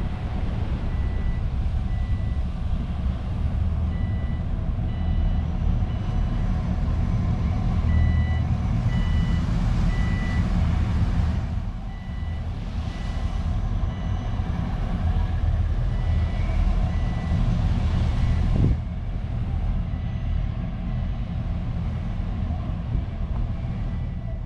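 A vehicle reversing alarm beeping at a regular pace over a loud, deep engine rumble, as vehicles manoeuvre around a beached vehicle ferry. A short knock comes about three quarters of the way through.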